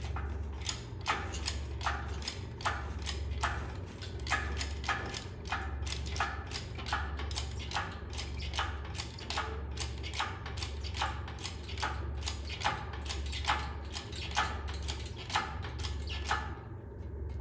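Background music with a steady beat: sharp hits about twice a second over a low bass that repeats in even phrases.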